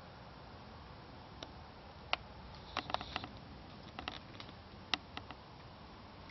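European badger tearing and crunching rotten wood on a fallen log: a run of sharp cracks and snaps starting about two seconds in, in two quick clusters, with the loudest snap near the end.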